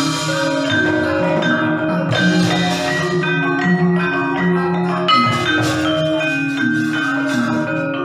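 Gamelan music: struck metallophones and gongs ringing out a steady run of notes, the accompaniment to a wayang shadow-puppet performance.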